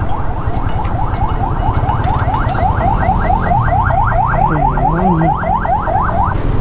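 Electronic alarm sounding a fast, repeating rising whoop, about five sweeps a second, over a steady low rumble; it stops shortly before the end.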